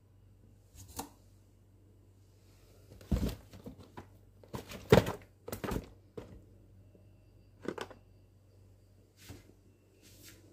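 Cardboard kit boxes being handled and lifted out of a cardboard shipping carton: scattered knocks, scrapes and rustles, the loudest about five seconds in.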